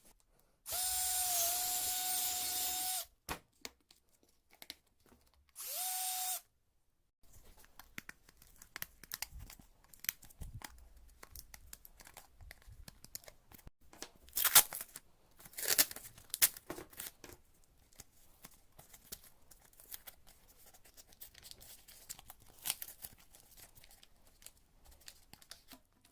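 A small power tool runs for about two seconds, then starts again with a rising whine and runs briefly. After that come irregular scraping, clicking and crackling handling noises, with a few sharper knocks.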